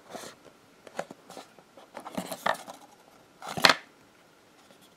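Stiff cardboard packaging being handled: a few short scrapes and taps, the loudest about three and a half seconds in.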